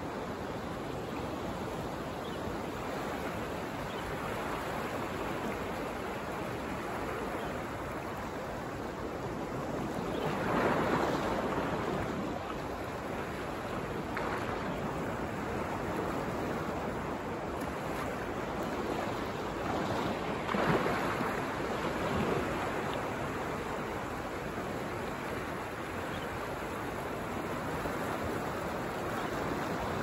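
Ocean waves breaking and washing up the beach: a steady rushing surf that swells louder as bigger waves come in, about ten seconds in and again about twenty seconds in.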